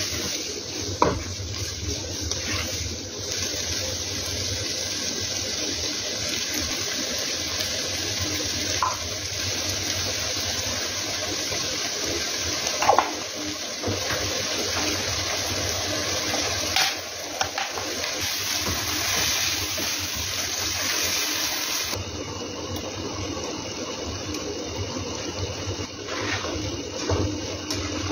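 Chicken and vegetables sizzling in hot oil in a nonstick wok as they are stir-fried, with a few sharp knocks of the spatula against the pan, two of them louder than the rest.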